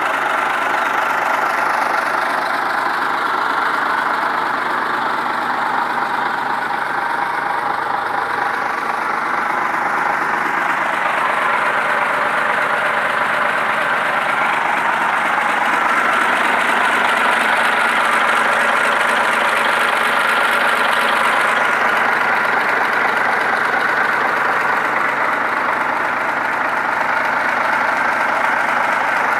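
Scania 112 truck's straight-six diesel engine idling steadily.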